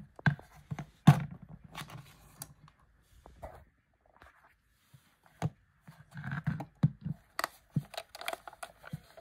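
Handling noise from a Sanyo M-GR62 portable cassette player's plastic case: irregular clicks, knocks and scrapes as it is turned in the hand and its switches and keys are worked, with the sharpest knocks at the very start and about a second in.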